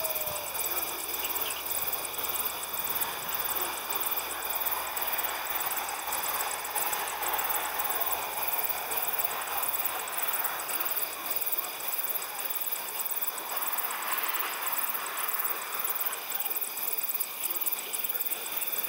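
Night ambience of insects, likely crickets, chirping in steady, fast, regular pulses over a constant low rushing background.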